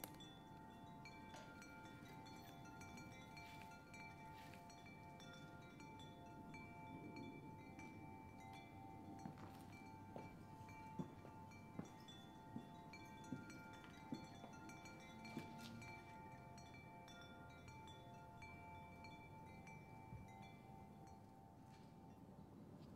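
Faint, sustained chime-like tones ringing together, with a few soft strikes and a handful of light clicks a little after the middle; the ringing fades out shortly before the end.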